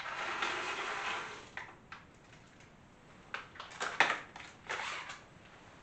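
Chocolate chips rattling as they are tipped into a stainless steel mixer bowl for about a second and a half, then a few light clicks and knocks from handling the bowl and mixer.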